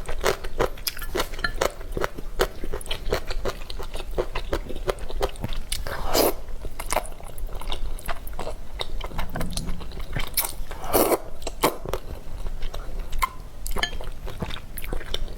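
Close-miked chewing and biting of spicy instant stir-fried noodles: a dense run of small wet mouth clicks, with two longer, louder mouth noises about six and eleven seconds in.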